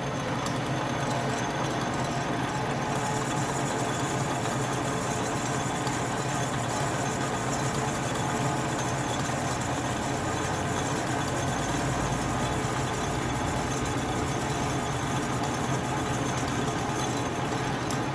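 Atlas metal lathe running steadily, its motor hum even throughout, with a brighter hiss joining about three seconds in.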